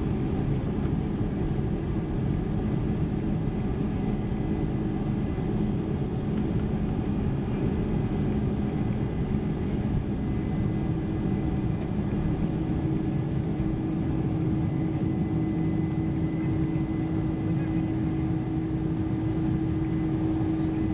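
Boeing 747-400 engines and airflow heard inside the passenger cabin: a steady rumble with a low hum that shifts to a higher, stronger hum about halfway through.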